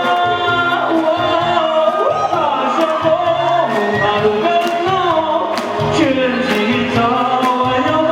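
A man singing a slow ballad over instrumental accompaniment with a steady beat, through a PA system.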